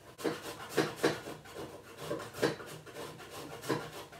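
Block of parmesan cheese grated on a flat hand grater, a run of short rasping scrapes about two to three a second.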